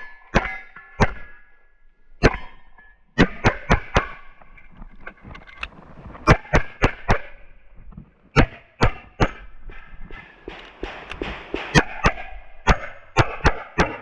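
Single-stack pistol firing a USPSA stage: quick pairs and strings of sharp gunshots, broken by short pauses as the shooter moves between target arrays. The last string comes near the end.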